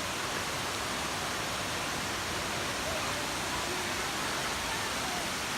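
Khlong Lan waterfall: water falling and crashing, a steady rushing roar with no break.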